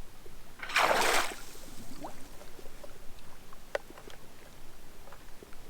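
A short splash of lake water about a second in, stirred by a small underwater drone at the surface, followed by a few faint scattered clicks and taps.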